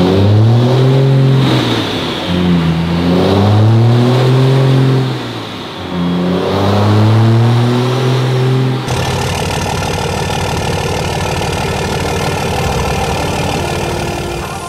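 Lifted Ram pickup's engine on a chassis dyno, revved up and dropped back three times, then held at a steady high speed from about nine seconds in.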